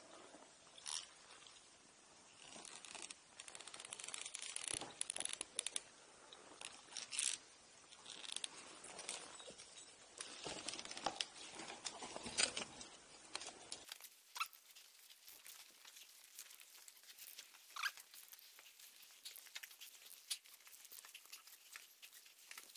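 Faint rustling, scraping and clicking of rope, climbing gear and clothing against rock as a climber hauls himself up a rope. After a sudden cut about two-thirds of the way through, only sparse, quieter clicks remain.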